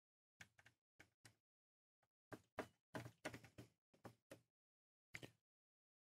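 Faint small clicks and taps from a screwdriver working the screw terminals of a stepper drive while wires and a resistor are fitted, a few scattered at first, then a quick cluster in the middle and one more near the end.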